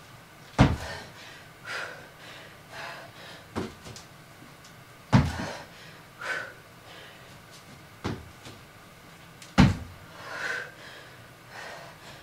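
Feet landing with a heavy thud on a floor mat, three times about four and a half seconds apart, during donkey-kick jumps from a plank. Softer knocks and breaths come between the landings.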